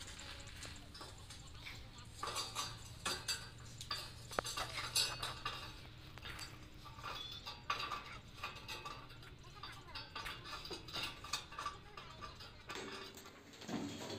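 Irregular metallic clinks and knocks of a man climbing down an iron ladder inside a well shaft, over a faint steady hum.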